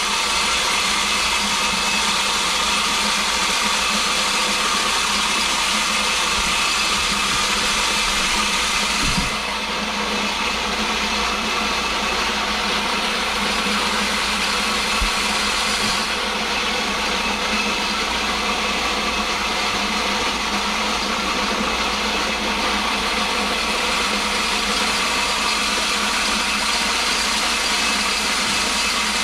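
Electric feed grinder running steadily, cracking corn. Its sound dips slightly about nine seconds in.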